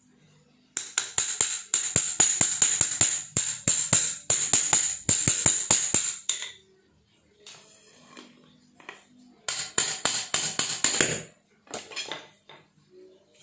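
Rapid metal-on-metal clinking and jingling as a steel bar is worked in the bore of a cast-iron pillow block bearing: a long run of quick, uneven clicks, a pause, then a shorter run a few seconds before the end.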